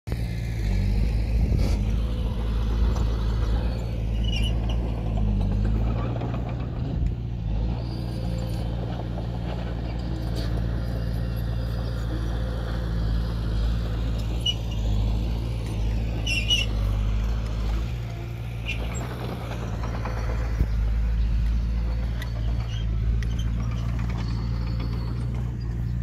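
Heavy earthmoving machinery's diesel engine running steadily, with a few brief high squeaks over it.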